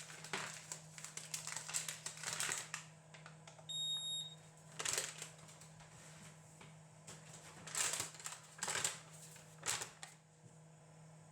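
Household handling noises, rustling and light clattering in short bursts, with one short high electronic beep about four seconds in, over a steady low hum.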